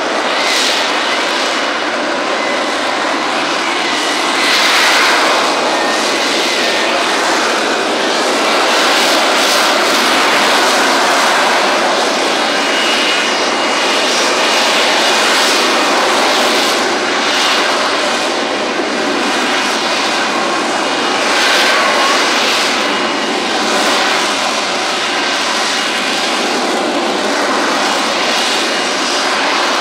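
Lockheed Martin F-35B Lightning II in STOVL mode, its lift fan and Pratt & Whitney F135 engine running in slow, near-hovering flight: a continuous loud jet roar that swells and eases slightly, with a thin high whine at times.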